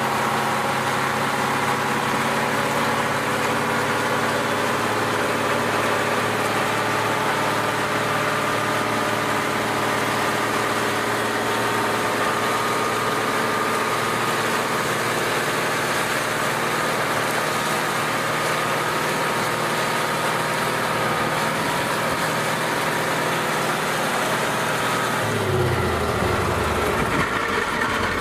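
KamAZ 6x6 truck's diesel engine held at steady high revs while its rear wheels spin on the asphalt in a burnout, over a dense hiss of scrubbing tyres. About 25 seconds in the engine note falls as the revs come down.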